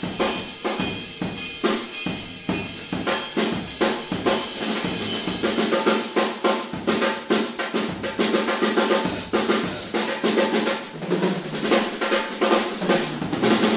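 Odery Eyedentity 14x4.5" all-maple snare drum played hard in fast, dense patterns and rolls, backed by bass drum on a drum kit.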